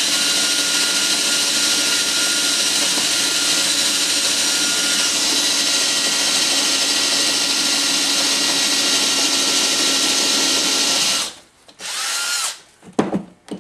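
Cordless drill running steadily at full speed as its bit bores down through stacked wooden blocks, with a steady motor whine. It stops about eleven seconds in, gives one short burst a moment later, and then a few sharp knocks follow.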